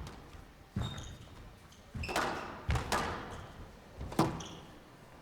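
Squash rally: the ball being struck by rackets and hitting the court walls, about five sharp knocks at irregular intervals of roughly half a second to a second and a half, echoing in the glass court. Short high squeaks from court shoes come between the shots.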